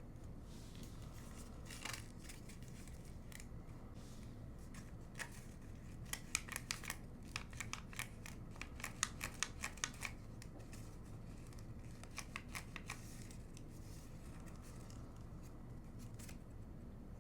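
Sheet of paper being worked, giving faint, short, crisp clicks and crackles: one about two seconds in, a dense run through the middle, and a few more shortly after. A faint steady low hum sits underneath.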